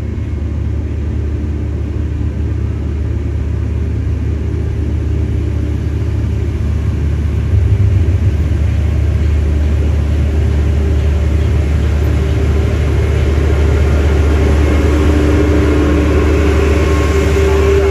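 Three-wheeler's engine and road noise heard from inside the cab while driving: a steady low drone. It grows a little louder partway through, and a rising hum comes in near the end.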